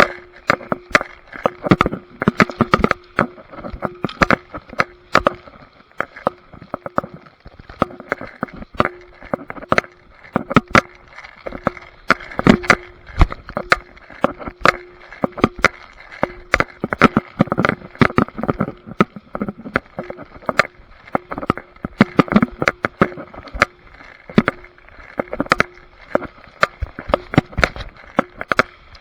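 Close, irregular knocking and rubbing on the microphone from a body-worn camera, with a faint hum that keeps breaking off.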